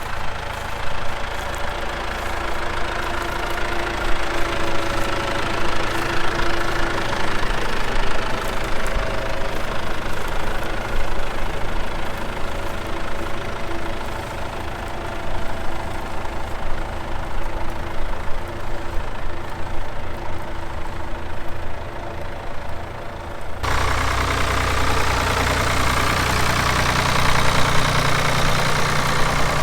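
Early-1950s tractor engine running steadily. About 24 seconds in the sound changes abruptly to a louder, deeper engine note.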